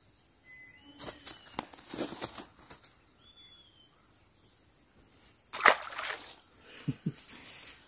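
Water splashing and sloshing at the water's edge, with the loudest splash about five and a half seconds in, and a few short whistled bird calls.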